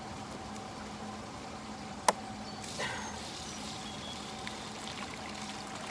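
A single sharp knock about two seconds in, then water pouring and splashing out of a tipped plastic bucket. A faint steady hum runs underneath.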